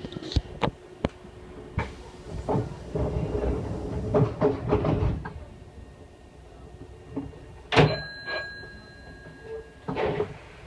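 A stationary Hankyu electric train at the platform: sharp clicks and a cluster of clunks and knocks, then a loud knock followed by a steady high beep lasting about two seconds.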